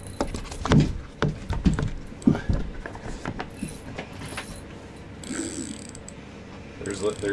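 Irregular clicks and knocks of rod and spinning-reel handling, with the reel's gears ticking as line is worked in over the first few seconds, then settling quieter.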